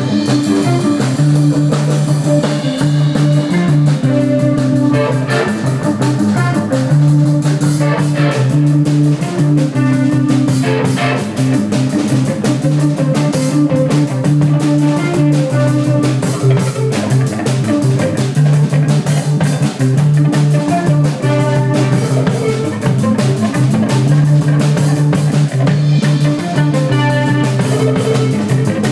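A rock band playing live: electric guitar over bass and drum kit, loud and continuous.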